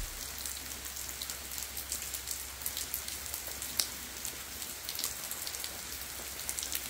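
Rain pattering on a surface: a steady hiss dotted with many small, sharp drop impacts, over a steady low hum.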